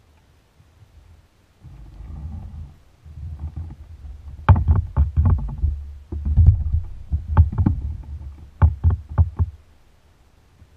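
Handling noise on a plastic sit-on-top kayak: a low rumble, then from about halfway in a run of sharp knocks and clicks in several quick clusters as gear and the paddle bump against the hull.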